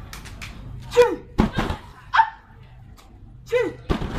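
Hand claps and slaps struck in a rhythm during an Indonesian group dance. Three short, high calls fall between them, about a second apart.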